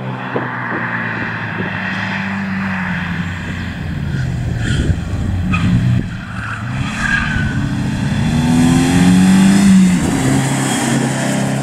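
BMW E30 3 Series rally car coming up and passing close at speed, its engine revving up and dropping back through gear changes, loudest as it goes by near the end.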